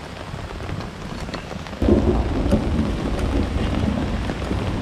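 Rain falling with scattered drops ticking on the microphone, and a low rumble of thunder that starts suddenly about two seconds in.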